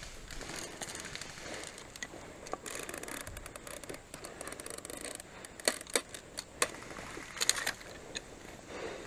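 Rustling and scraping of clothing and gear shifting against a tree trunk and the pine-needle leaf litter, with several sharp clicks in the second half.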